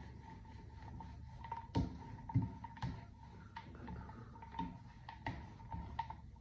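Paint roller rolled over wet watercolour paper on a plastic sheet, with a run of light, irregular clicks and taps from the roller.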